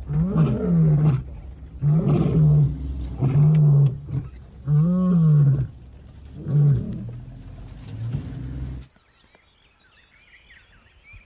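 Male lion roaring close by: a series of deep, loud roars every one to two seconds, then weaker grunts, ending abruptly about nine seconds in.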